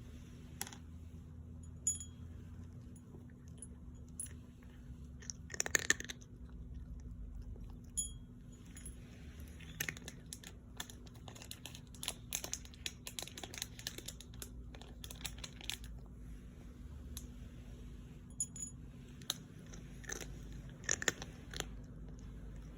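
Irregular crunchy chewing, many short clicks in clusters, with one louder sharp burst about six seconds in.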